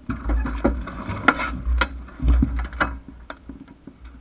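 Irregular clattering: sharp clicks, knocks and rattles with a few low thuds, and no engine running.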